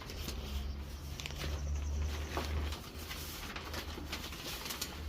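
Chickens making soft, low calls, with light tapping and scraping sounds.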